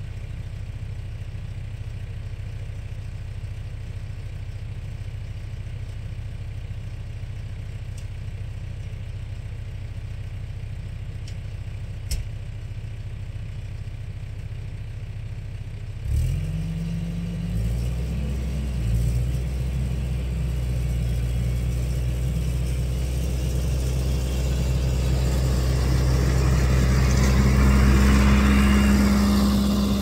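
Farm tractor's diesel engine idling steadily, then revving up about halfway through as it pulls away and drives closer, growing louder until it passes close by near the end.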